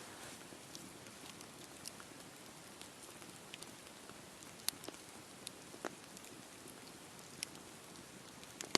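Wood campfire burning: a soft steady hiss with scattered sharp crackles and pops, two louder pops a little past halfway and one near the end.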